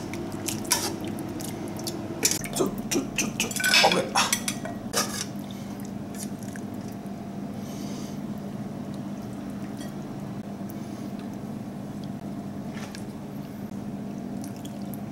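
Steel ladle and chopsticks clinking against a metal stockpot and plate while braised fish pieces and sauce are dished out. A cluster of clinks comes in the first five seconds, then a steady low hum with an occasional faint tap.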